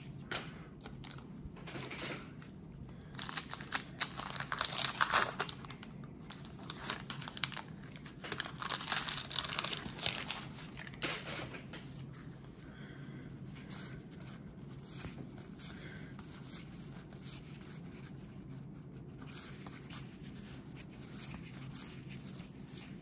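A 1991 Donruss wax pack's paper wrapper being torn open and crinkled, in two stretches of rustling about three and eight seconds in, followed by quieter shuffling of the cards.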